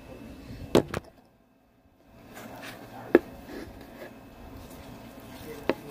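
A few sharp knocks and handling taps: two close together just under a second in, one a little after three seconds and one near the end, with a short dip to near silence after the first pair.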